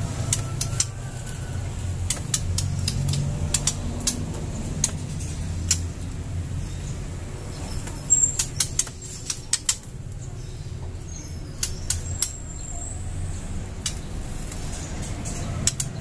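Scattered sharp taps and clicks with a few brief high chirps, over a steady low rumble, the taps bunching together about eight seconds in: caged white-rumped shamas and a yellow-vented bulbul moving about on their perches and cage wire.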